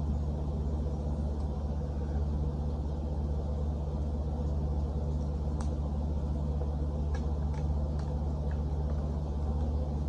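Steady low background hum, with a few faint clicks of plastic from about halfway in as plastic stand pieces are handled and fitted to a box fan's base.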